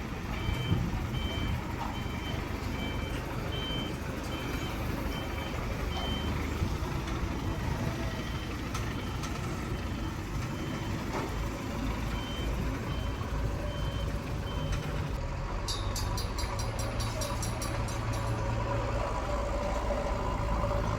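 Vehicle warning beeper sounding in a regular pulse of high beeps, about one and a half a second, over a running engine; the beeps pause about six seconds in and stop about fifteen seconds in. A fast high rattle follows in the later part.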